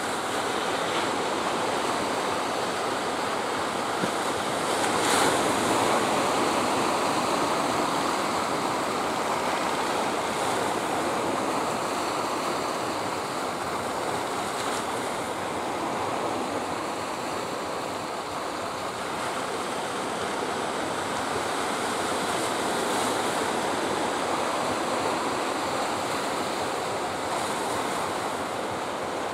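Sea surf washing steadily onto the shore in swells, the loudest surge about five seconds in.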